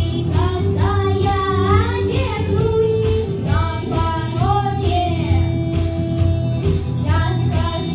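Children's vocal ensemble singing a song over live instrumental backing with guitar.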